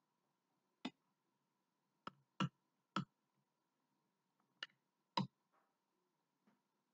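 A metal spoon clinking sharply against a glass mason jar about six times over a few seconds while brown sugar is scooped out.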